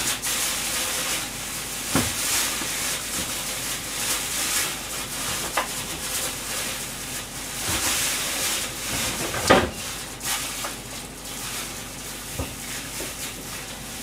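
Steady, fluctuating hiss with a few sharp knocks, the loudest about nine and a half seconds in.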